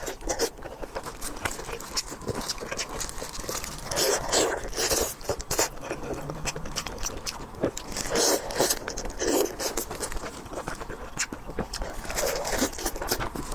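Close-miked eating: biting, crunching and chewing with sharp irregular clicks and wet mouth sounds throughout.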